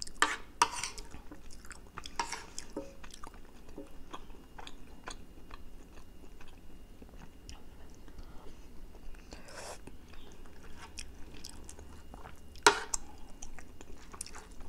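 Close-up wet chewing and smacking of a soft egg omelette with shredded chicken in green chili sauce, with many small clicks and a spoon scraping a ceramic plate. A sharp click near the end is the loudest sound.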